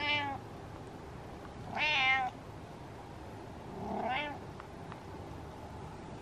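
Domestic cat meowing three times, about two seconds apart, each a short call that bends in pitch; the third is fainter.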